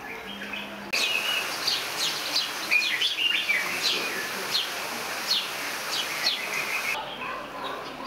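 Several birds chirping and calling: short, sharp chirps sweeping downward, about one a second, with some lower, busier calls in between, over a steady hiss. The calls start and stop abruptly, about a second in and about a second before the end.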